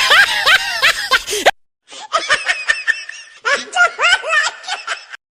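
People laughing and snickering, with voices. The sound cuts off abruptly about a second and a half in and starts again after a short silence, as in two separate clips joined together, and stops abruptly near the end.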